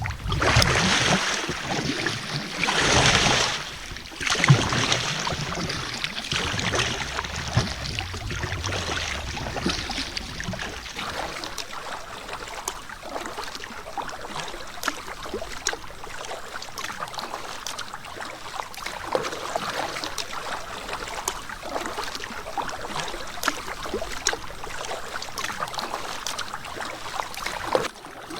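A canoe being paddled on a lake, with water splashing and lapping at the paddle and hull. A rush of wind on the microphone is loudest in the first four seconds.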